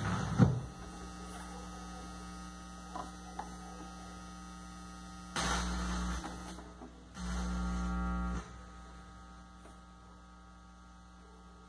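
A vinyl 45 rpm single on a turntable: the last notes of the song die away about half a second in, leaving a steady electrical hum with a couple of faint clicks. Two louder low hums of about a second each follow as the tonearm lifts off and returns, and the hum sinks lower as the platter stops.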